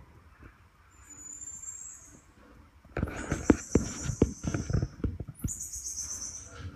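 Common marmoset calls: three high, drawn-out whistling calls. Between the second and third, a run of loud knocks and rattling is the loudest sound.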